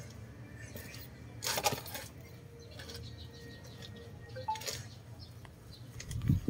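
A few light metallic clinks, like steel hand tools knocking together. The loudest comes about one and a half seconds in and another near four and a half seconds.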